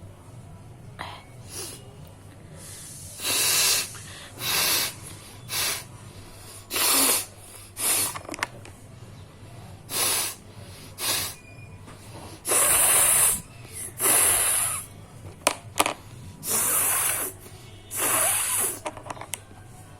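A person blowing her nose hard, about a dozen forceful blows in a row. Most are short and one runs longer, a little past twelve seconds in.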